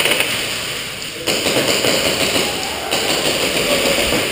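Airsoft guns firing in a large warehouse, the shots echoing off the walls and ceiling.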